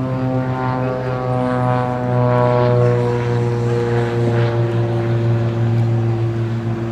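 Loud, steady engine drone whose pitch slowly falls throughout.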